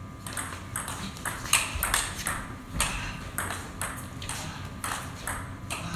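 Table tennis rally after a serve: the ball ticking off the paddles and bouncing on the table in a quick run of sharp clicks for several seconds.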